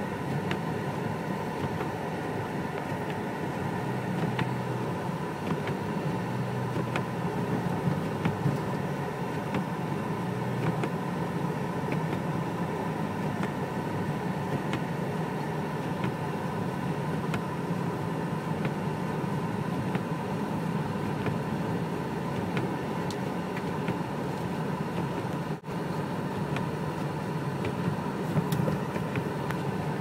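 Steady cabin drone of a car driving slowly on a snow-covered road, low engine and tyre noise with a few faint ticks. The sound cuts out for an instant late on.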